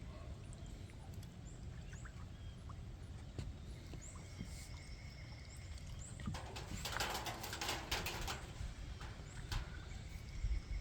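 Birds calling, with a low wind rumble. A dense rustling, scratching burst lasts about two seconds past the middle.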